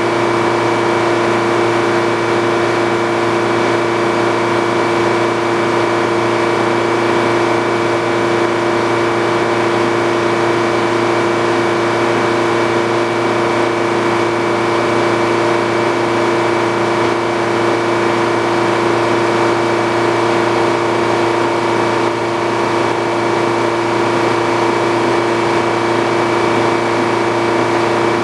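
Engine-driven sawmill running steadily at constant speed, a continuous even hum with no change in pitch or level.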